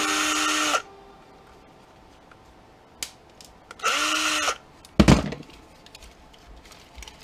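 Cordless drill-driver spinning in two short bursts about three and a half seconds apart, the second whining up in pitch as it starts, while backing screws out of a plastic printer part. A single sharp knock comes about five seconds in.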